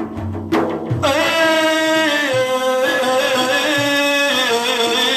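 A male voice singing Arabic devotional praise (madih) in a long melismatic line, holding and ornamenting sustained notes. A drum stroke comes about half a second in, just before the voice enters.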